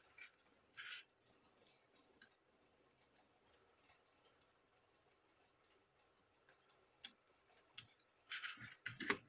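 Near silence broken by faint, scattered clicks and taps of a laptop keyboard and its connector being fitted by hand, with a quick run of clicks near the end.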